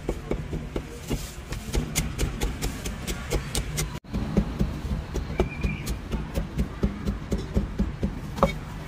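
Steel cleaver chopping cooked meat on a thick wooden chopping block: quick, uneven knocks, a few a second, over a low street rumble.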